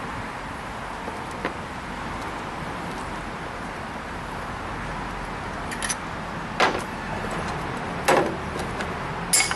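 Ratchet wrench working the head bolts out of a small lawn mower engine, with a few sharp metal clanks and clinks in the second half as bolts and the aluminum cylinder head are handled, over a steady background noise.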